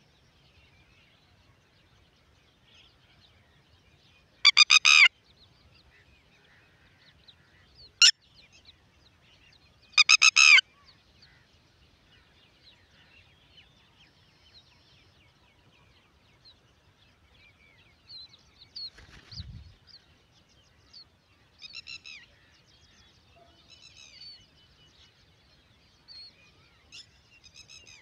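Red-wattled lapwing giving loud, harsh calls: two short bursts of rapid repeated notes several seconds apart, with a sharp click between them. Fainter calls follow in the second half, over faint background chirping.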